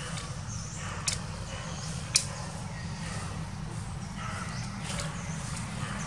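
Outdoor background: a steady low rumble with faint scattered sounds, broken by two sharp clicks about a second apart, the second louder.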